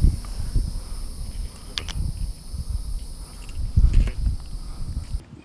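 Insects buzzing steadily at a high pitch over a low rumble of wind and handling on a body-worn camera, with a couple of bumps about two and four seconds in; all of it cuts off just before the end.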